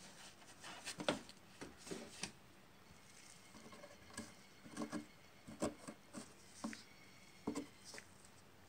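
Faint, scattered rustling and light taps, about a dozen short ones, from hands poking around a plastic housing in a car's engine bay and handling crinkly clear plastic.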